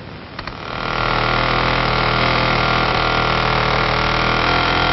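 Airplane engine running steadily, fading in about a second in.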